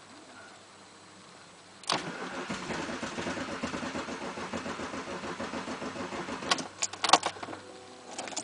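BMW 2.5 TDS inline-six turbodiesel cranked by its starter for about four and a half seconds without catching, then a few sharp clicks as the cranking stops. The engine will not start after its crankshaft position sensor was replaced.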